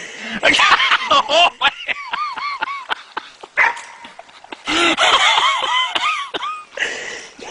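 Puppies yipping and whining in quick runs of short calls that rise and fall in pitch, busiest a couple of seconds in and again about five seconds in.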